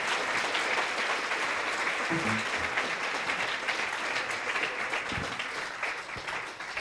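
Audience applauding steadily, starting to die away near the end.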